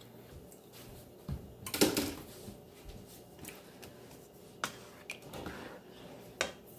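A plastic spoon stirring thick chili in a nonstick skillet, with scattered knocks and scrapes of spoon and pan; the loudest cluster comes about two seconds in.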